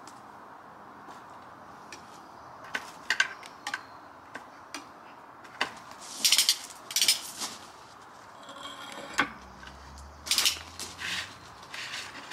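Metal kitchen tongs clicking and scraping against a metal baking tray as food is turned and moved, in short scattered clatters, the loudest about halfway through and again near the end.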